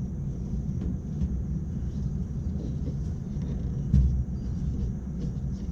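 Rooftop HVAC unit's belt-driven blower running with a steady low rumble, with one short knock about four seconds in.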